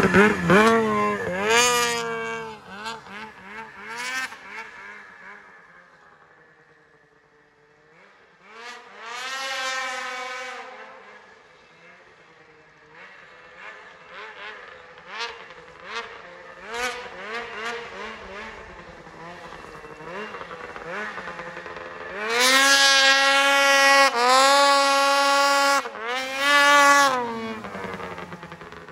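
Ski-Doo 600RS race snowmobile's two-stroke twin engine, very loud. It is revved sharply at the start, then heard farther off with rising revs and quick throttle blips. Near the end it runs past close by at high revs in three long pulls, which are the loudest part.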